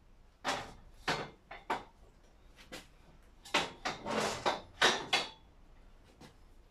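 Metal clunks and scrapes of a small locomotive bogie and its wheel set being handled and fitted under a steel frame. A few separate knocks come in the first two seconds, then a denser run of clattering and scraping between about three and a half and five seconds in.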